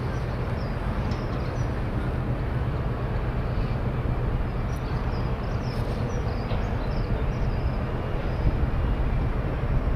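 Steady low rumble of a large ferry's diesel engines as it approaches, with a few faint short high chirps scattered through.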